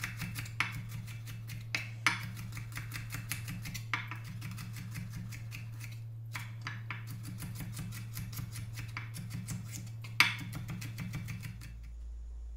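Chef's knife julienning bell peppers on a wooden cutting board: rapid, even taps of the blade on the board, with a louder knock about two seconds in and another about ten seconds in. The chopping stops near the end.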